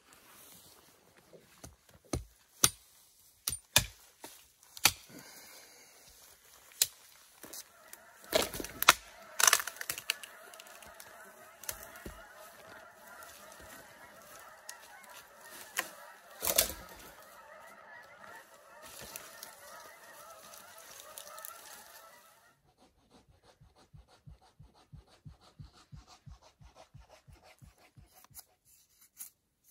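A flock of geese honking continuously, starting about 7 seconds in and stopping about 22 seconds in. Scattered sharp knocks and footfalls come through it, and a run of small quick clicks follows near the end.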